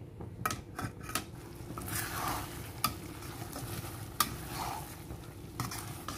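A slotted metal spoon stirring prawns in thick sweet-and-sour sauce in a stainless steel kadai, scraping the pan with several sharp metal-on-metal clinks, over a light sizzle from the pan.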